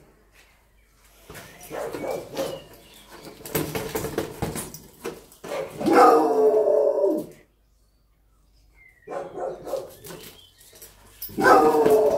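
A dog gives long barks that fall in pitch, twice: about halfway through and near the end. It is playing with a large rubber balloon ball, and between the barks the ball is heard scuffing and knocking against the dog and the paving.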